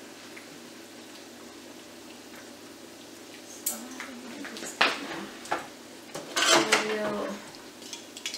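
Metal fork and tongs clinking and scraping against a skillet while plantain fritters are turned and taken out of the frying oil. A steady low background runs for the first few seconds, then come separate clinks, busiest around six to seven seconds in.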